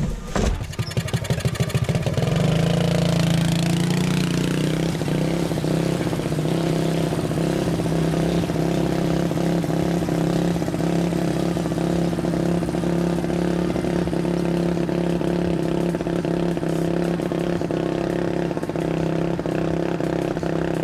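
Lawn mower engine of a homemade go-kart starting up, its firing strokes quickening over the first two seconds, then running at a steady speed.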